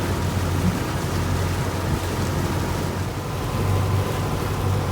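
Sightseeing boat's engine running steadily with a low drone while under way, under a constant rush of water and wind noise.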